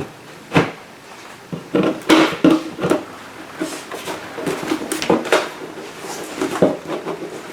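Irregular knocks, clatters and scraping as a hand tool works at a hole in a plastic bucket top.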